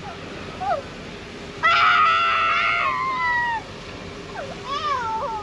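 A child on a towed snow tube screams, a long high cry about two seconds in that falls in pitch as it ends. Near the end comes a shorter, wavering squeal.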